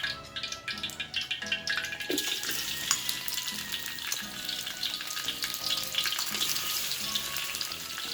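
Prawns frying in hot oil, a dense sizzle that swells about two seconds in. Background music plays underneath.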